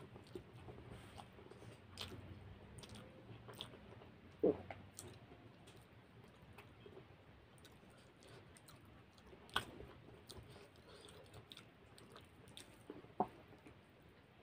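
Close-up chewing and mouth sounds of a man eating rice, egg and fried saag bhajiya by hand, with a few sharp clicks, the loudest about four seconds in and others near ten and thirteen seconds.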